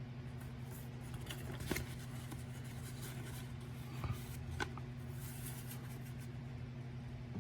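Paper handling: the pages of a printed instruction manual being moved and turned, with a few short crinkles and clicks at about two seconds in and again around four to four and a half seconds, over a steady low hum.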